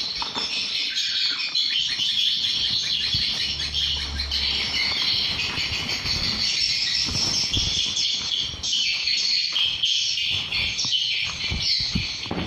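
A flock of swiftlets chirping and twittering densely and without a break: the roosting sound inside a swiftlet house. A few low thumps come in the second half.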